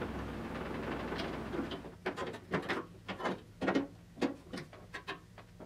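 Slip-joint pliers gripping and bending a tab of a thin sheet-metal roof finishing piece, giving an irregular run of about a dozen sharp metallic clicks and snaps that starts about two seconds in. Before that there is a steady rubbing noise.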